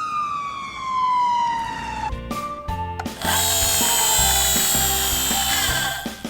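Toy fire truck's electronic siren sound winding down in pitch, then a few clicks and a harsh buzzing whir lasting about three seconds.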